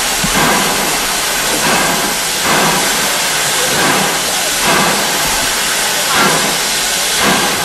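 Steam locomotive letting off a loud, steady hiss of steam, with surges roughly once a second.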